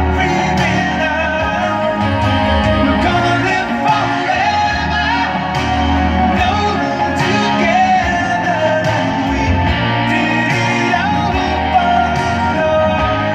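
A song with singing played through a car audio system's DLS Nordica 6.2 front component speakers, run active.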